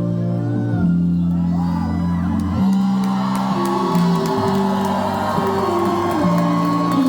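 Live electronic music: held synth and bass notes changing every second or two over a light ticking beat, with the crowd whooping and shouting.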